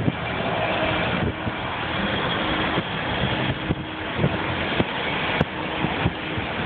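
Steady road noise from a moving vehicle and passing cars, with scattered light knocks.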